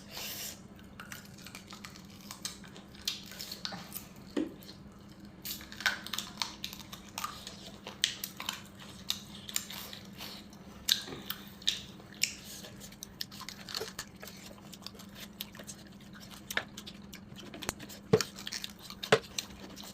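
A person chewing and eating food close to the microphone: wet mouth clicks and smacks scattered irregularly, with a couple of louder knocks near the end and a faint steady hum underneath.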